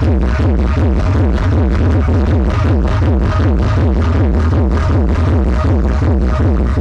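Electronic dance music played loud through large outdoor subwoofer rigs, with very heavy deep bass under a fast, steady beat and repeated falling synth sweeps.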